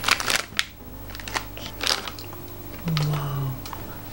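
Plastic ice-cream wrapper crinkling and tearing open in short crackles, followed by a brief hummed "mmm" about three seconds in.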